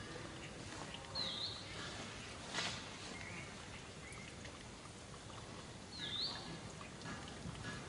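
Two short, high-pitched animal calls about five seconds apart, each dipping and then rising in pitch, over a steady outdoor background hiss. A brief knock comes between them, with a few fainter chirps.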